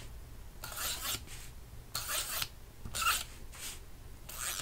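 Tape runner drawn along the edges, laying adhesive tape in four short strokes, each a dry hiss that stops and starts again.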